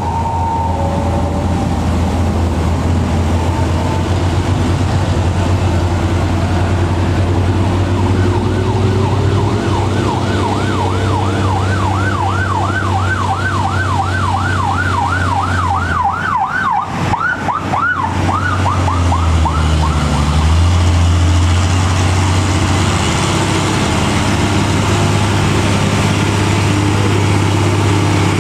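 Mitsubishi Fuso 220 PS truck's diesel engine running hard under load on a steep climb. A fast warbling siren-type tone, rising and falling about three times a second, sounds over it for roughly ten seconds in the middle. The engine sound briefly breaks up about two-thirds of the way through.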